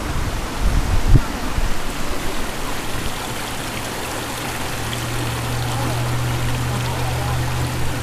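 River current rushing steadily, an even hiss of flowing whitewater.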